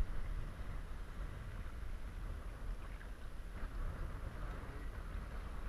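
Wind on the microphone and water lapping around a jetski at sea: a steady low rumble with a light hiss.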